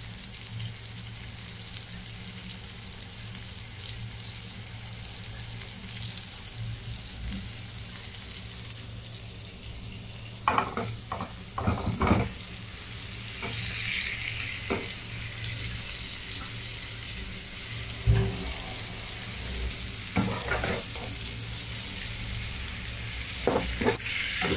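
Onion-tomato masala sizzling as it is fried down in a pan, with a metal spatula scraping and knocking against the pan. About halfway through there is a clatter as fried potatoes and fish are tipped in from another pan, then more knocks of the spatula as it stirs.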